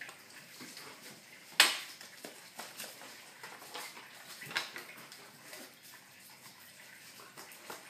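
An Australian shepherd puppy and a chihuahua play-fighting on a tiled floor: scattered clicks and scrabbling of claws on the tiles, with a sharp knock about one and a half seconds in and a smaller one at about four and a half seconds.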